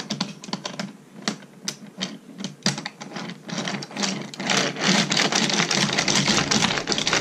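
Wooden toy train pushed by hand along wooden railway track: scattered wooden clicks and knocks at first, thickening to a dense, rapid rattle from about four seconds in.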